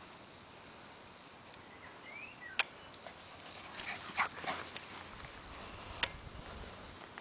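Seven-week-old Appenzeller Sennenhund puppies giving short whimpers and yips, with two sharp clicks in between.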